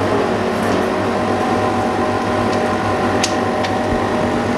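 Steady mechanical hum of running repair equipment, with two short clicks about three seconds in.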